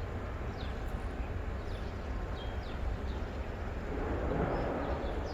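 Outdoor ambience: a steady low rumble with small birds giving short, high, falling chirps over and over, and a rush of noise swelling up about four seconds in.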